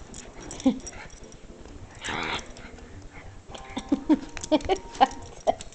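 Jack Russell terrier whining and yipping in play: a short cry, a breathy noise about two seconds in, then a quick run of short whimpering yips in the second half.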